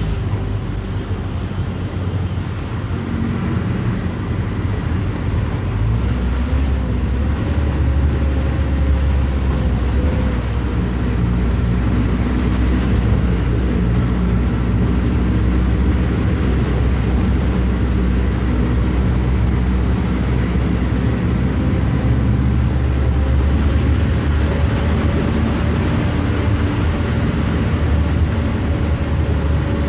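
Mercedes-Benz OF 1519 bus's diesel engine running steadily, with a deep low rumble that grows louder about six seconds in and engine tones that drift slightly up and down in pitch.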